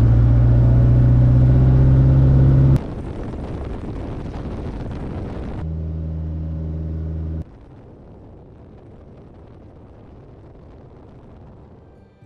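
Piston engine and propeller of a ski-equipped Super Cub running with a steady low drone, loud for the first three seconds. After abrupt cuts it is quieter, the drone returns briefly around six seconds, and then a faint steady rumble follows.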